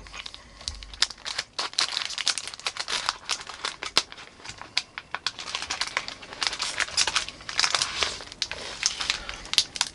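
Chocolate-bar wrapper crinkling and crackling in irregular bursts as hands work at its sealed end, trying to get it open. It is hard to open.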